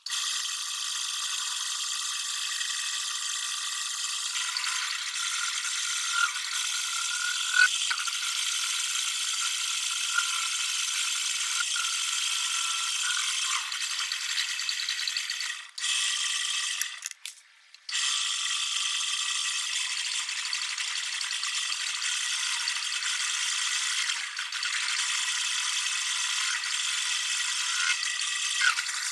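Metal lathe running, its chuck spinning a steel workpiece on a tailstock centre while the tool turns a groove in it. The sound is a steady mechanical rattle with a faint whine, and it cuts out briefly about two-thirds of the way through.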